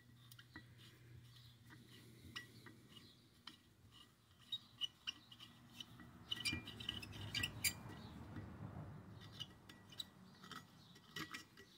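Faint clicks and light metal clinks of a hand screwdriver turning small screws out of a fare box's metal tower frame. The clinks cluster around the middle.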